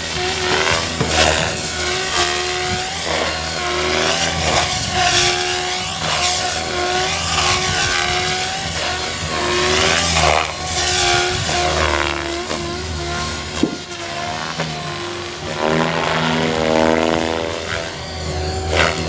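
XLpower Nimbus 550 electric RC helicopter flying 3D manoeuvres: the motor whine and the rotor sound swing up and down in pitch over and over as it swoops and flips. There is one sharp click about two-thirds of the way through.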